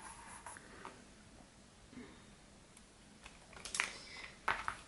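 Soft taps and paper rustles from hands pressing a sticker onto a planner page and handling the paper, with two short clusters of sharper clicks near the end.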